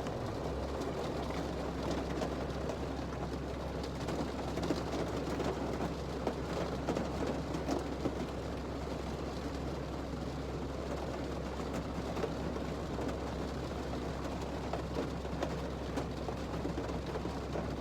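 Steady rain falling, an even hiss with many small scattered taps of drops.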